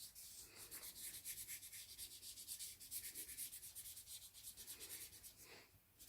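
Pen or pencil colouring in on paper: faint, quick back-and-forth scribbling strokes, several a second, easing off just before the end.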